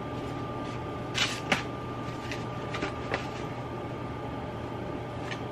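A steady low hum in a small room, with a few light knocks and rustles as small cardboard boxes are taken from a shelf, about a second in and again about three seconds in.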